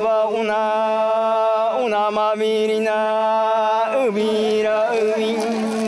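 Chant in a single voice, holding about three long notes of roughly two seconds each, each sliding down in pitch at its end, over a steady low drone.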